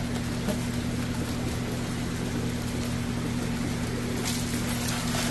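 Steady electric hum of aquarium pumps and filters. About four seconds in, water splashes and trickles as a fish bag is poured through a net into a bucket.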